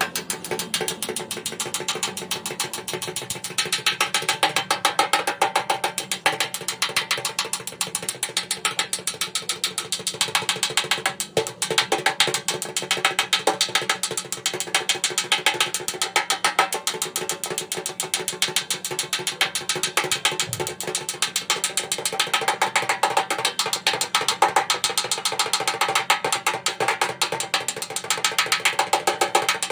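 Fast, steady run of mechanical clicks, with background music under it.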